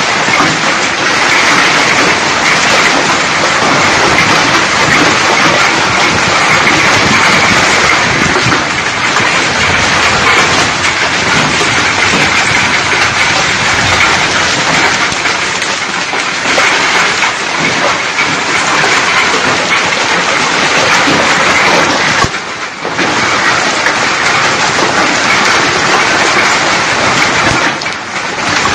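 Heavy hail falling hard on a garden lawn and trees, a loud continuous clatter of countless hailstones. It eases for a moment about three-quarters of the way through, then returns.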